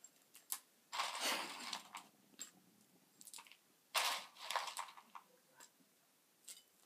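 Dry ring-shaped cereal rattling and crunching in a small plastic tub as a spoon scoops through it: two main bursts, about a second in and about four seconds in, with a few light clicks between.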